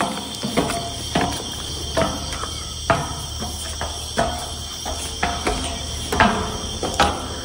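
Night chorus of crickets and other insects, a steady high chirring, with short sharp knocks at roughly once-a-second intervals.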